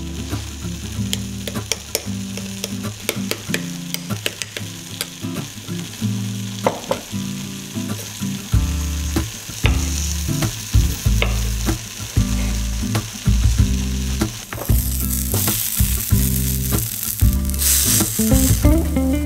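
Spoon clinking in a small glass bowl and knife taps on a wooden cutting board over light background music; about three-quarters of the way in, a loud sizzle starts as sweet potato slices fry on a ribbed grill pan.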